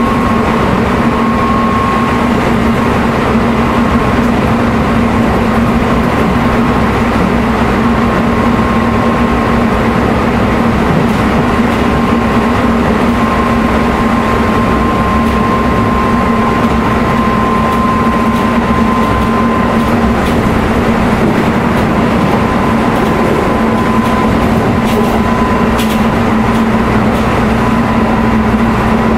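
Keisei 3700 series electric train (Toyo GTO-VVVF drive) running steadily at speed, heard inside the passenger car: an even rumble of wheels on rail with a low hum and a high whine from the traction drive that sinks very slightly in pitch. A few faint ticks come in the second half.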